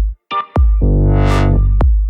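Electronic background music: deep synth bass with sharp drum hits and a rising noise sweep about a second in.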